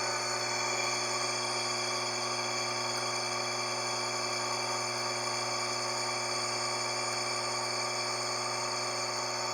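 Electrolux LF90 washing machine running with a steady hum and several constant whining tones. The noise is from a worn bearing in the drive that needs replacing.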